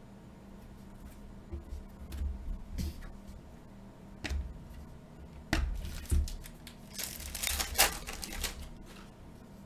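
Trading cards handled with scattered taps and clicks, then a foil card pack torn open and crinkling for about a second and a half, starting about seven seconds in.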